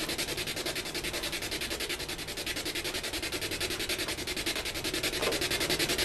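Ghost box (spirit box) sweeping through radio stations: a steady rhythmic static hiss, chopped several times a second as it skips from station to station.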